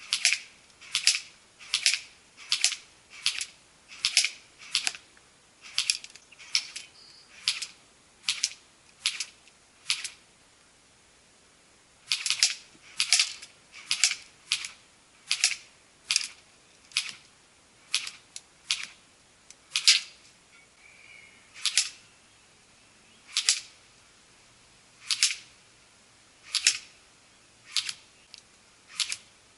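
Airsoft AK-47 Kalashnikov rifle firing single shots: a long series of sharp, light cracks, roughly one to two a second, with a pause of about two seconds a third of the way through.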